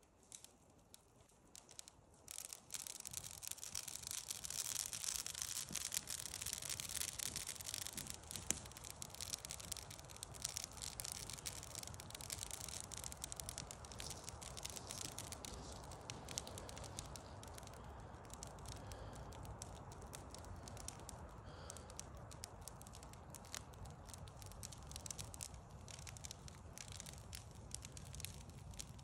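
A teepee-stacked campfire of dry sticks crackling and popping as it catches, the crackle rising suddenly about two and a half seconds in and then burning on steadily, with a faint low rumble of the flames underneath.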